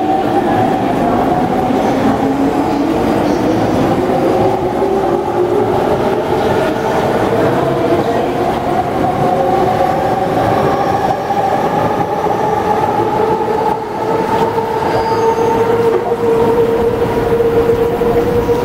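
Unrefurbished JR East E231-series Yamanote Line electric train accelerating, its VVVF traction inverter (the so-called 'ghost inverter') whining in several tones that climb slowly and steadily in pitch over the rumble of wheels on rail.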